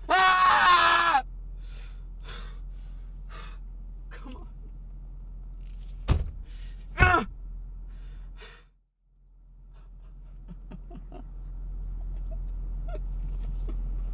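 A man cries out in anguish for about a second, then sobs in short, ragged breaths. About six seconds in there is a sharp thump, quickly followed by another short cry, and in the last few seconds a low rumble slowly swells.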